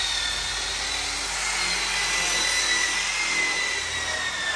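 A power tool running with a steady high-pitched whine over a hiss, its pitch sagging slightly near the end.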